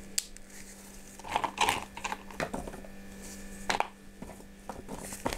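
Irregular clicks and crackles of chunks of orchid bark being broken by hand and laid into a pot.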